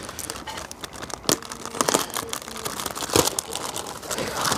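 A plastic bag rustling and crinkling as it is handled and opened, with many small sharp crackles.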